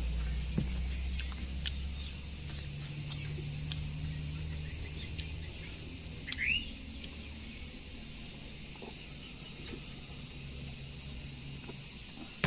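Outdoor background with a steady high insect drone, a low hum that fades after the first few seconds, scattered small clicks, and a single short chirp about six and a half seconds in.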